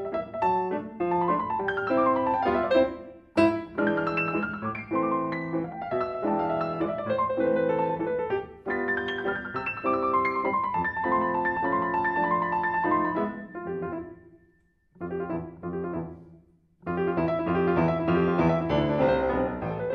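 Grand piano played solo: a quick passage of many notes that twice breaks off briefly about three-quarters of the way through, then comes back full and loud.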